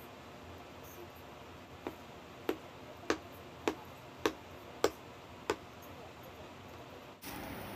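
Kitchen knife slicing a block of konnyaku on a cutting board. The blade taps the board seven times, about one sharp tap every 0.6 seconds.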